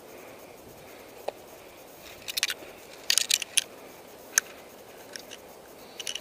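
Spruce branches and twigs rustling and scraping against a person and his gear as he pushes through them, in several short, irregular bursts from about two seconds in.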